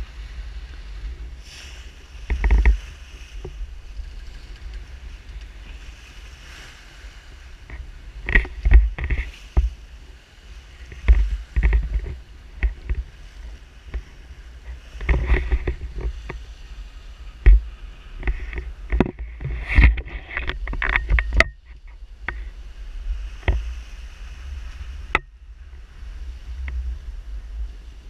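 A sailboat under way at sea: wind buffeting the camera's microphone and water rushing along the hull, a steady low rumble broken by irregular louder gusts and a few sharp knocks.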